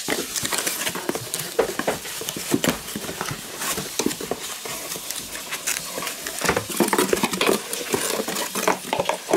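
Packaging crackling and rustling as a gift mug is worked out of its cardboard box, a dense run of crinkles with sharp clicks and knocks.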